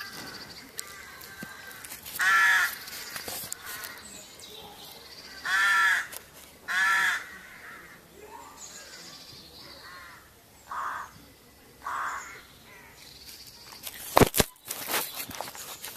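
A series of about five short, harsh animal calls, each about half a second long, spaced a few seconds apart. Near the end come sharp knocks and rubbing right on the microphone as the cat's body presses against the camera.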